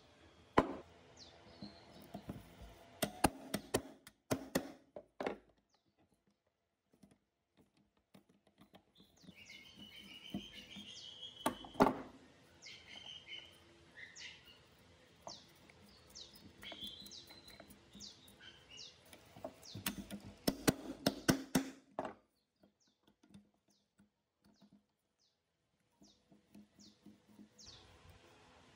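Scattered clicks, taps and knocks of hand tools and stiff wires being worked at in the rusty terminal box of an old electric blower motor, with quiet pauses between. Birds chirp in the background from about ten seconds in and again near the end.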